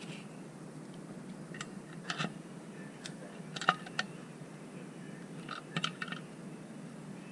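Small, sharp metal clicks and taps of needle-nose pliers on a chainsaw's chain-brake lever and case as the lever is worked onto its pin, coming in short clusters about two, four and six seconds in.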